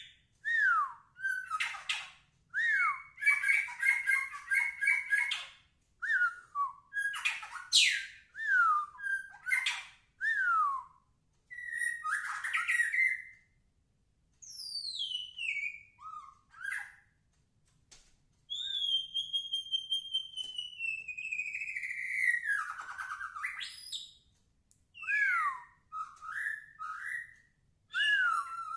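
White-rumped shama singing vigorously: a varied run of loud, clear whistled phrases, many sliding down in pitch, mixed with harsh chattering notes. About two-thirds of the way through comes a long falling whistle, with short pauses between phrases.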